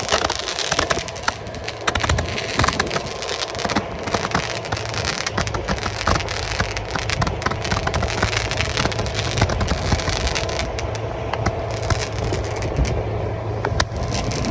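Fireworks crackling: a dense run of sharp cracks and pops in quick, irregular succession, over a steady low hum.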